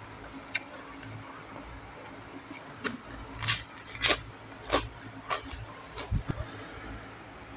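Eating noises: a series of sharp crisp clicks and crunches, the loudest in the middle seconds, with a couple of dull low thuds near the end.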